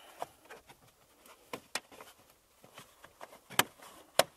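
Scattered light clicks and rustles of handling as the carpeted boot-side trim lining of a car is pushed back into place, with two sharper clicks near the end.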